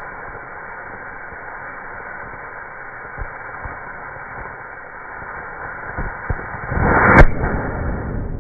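Steady hiss of a model rocket motor burning, swelling near the end into a louder burst with a single sharp crack about seven seconds in: the motor's ejection charge firing.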